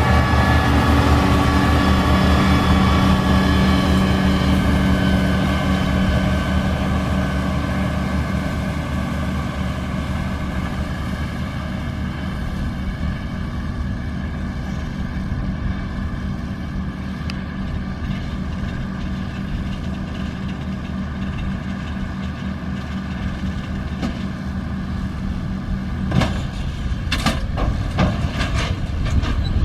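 Massey Ferguson 7718 tractor's diesel engine running steadily while it pulls a round baler, a little louder in the first few seconds and then even. Several sharp knocks come near the end.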